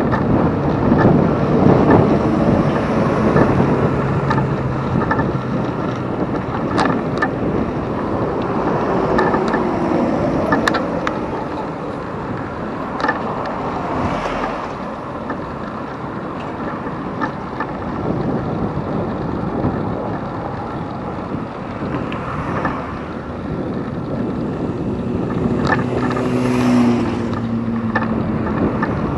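Wind buffeting the microphone of a camera on a moving bicycle, with a steady rush of riding noise and scattered sharp clicks. Motor vehicles pass, one plainly near the end.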